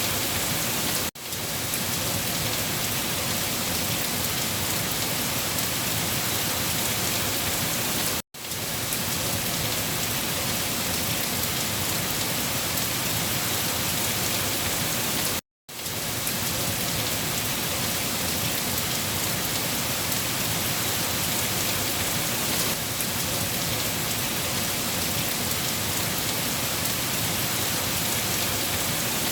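Steady rain falling on a surface, an even dense patter, which cuts out to silence for a moment three times.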